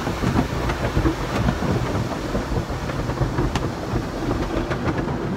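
Automatic car wash working over the car, heard from inside the cabin: a steady rush of water spray with a low rumble and scattered knocks.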